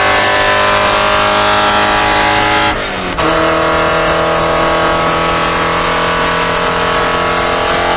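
Porsche 944 Spec race car's four-cylinder engine accelerating near 6,000 rpm in fourth gear, heard from inside the cabin. About three seconds in the sound dips briefly for an upshift to fifth: the revs drop to under 5,000 and then climb again.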